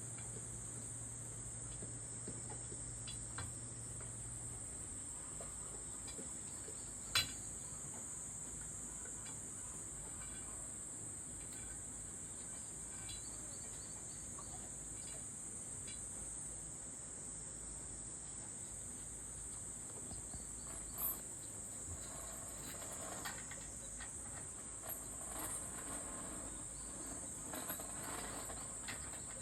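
Steady high-pitched chorus of summer insects, with a sharp click about seven seconds in and a few softer knocks and rustles in the second half.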